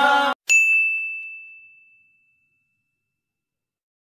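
A single bright ding, a bell-like editing sound effect, ringing out and fading away over about a second and a half. Just before it, a group of voices cuts off abruptly.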